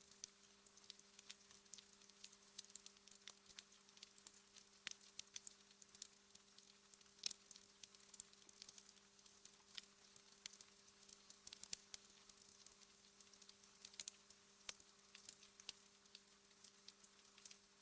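Wood fire in a fireplace crackling faintly, with irregular small pops and one louder pop about seven seconds in, over a steady low hum.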